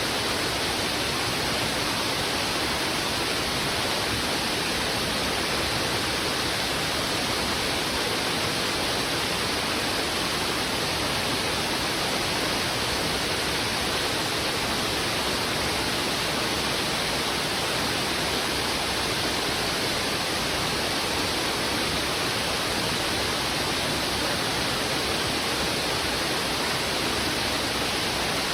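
Fast-flowing river water rushing steadily, an even unbroken hiss of flowing water.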